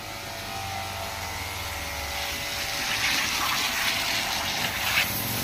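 A small 15-volt DC water pump (250 psi / 17 bar) running with a steady hum, feeding a pressure spray wand; from about three seconds in the hiss of the water jet grows louder.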